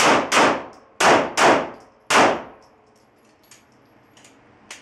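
A string of five handgun shots fired in quick succession on a shot timer: two close pairs and a last single shot, each a sharp crack with a ringing tail. A few faint clicks follow.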